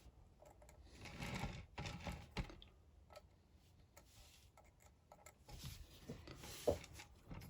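Faint, scattered light clicks and rustles of hands handling a rotating grid soldering board and the small metal pieces laid on it.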